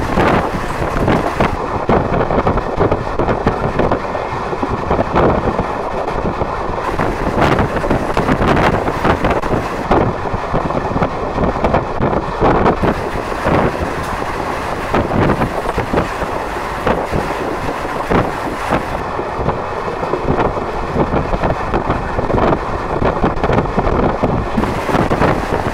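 Wind buffeting the microphone at the window of a moving train, in loud irregular gusts over the train's steady running noise.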